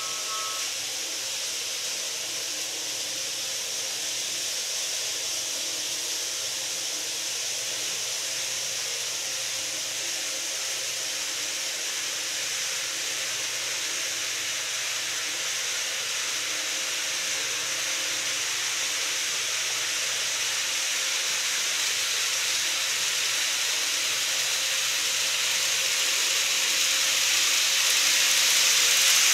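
KATO 103 series model electric train running on the track, a steady high hiss of wheels and motor that grows louder over the last ten seconds as the train approaches.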